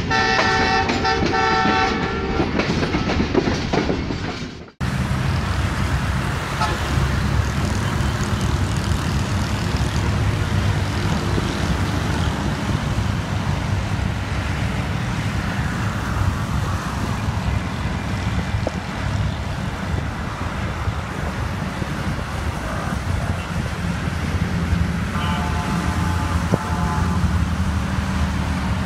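Steady low wind rumble on the microphone beside the railway tracks. Near the end a distant diesel locomotive's horn sounds for about two seconds as the train approaches. It opens with a few seconds of held tones under the intro logo, cut off sharply.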